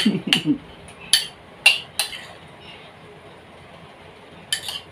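Metal spoon clinking against a ceramic bowl and plate while scooping chopped toppings: four sharp clinks in the first two seconds, a quiet pause, then two more near the end.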